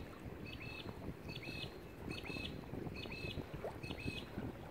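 A bird calling over and over, a short two-pitched chirp five times, a little under a second apart, over a low rumble of wind on the microphone.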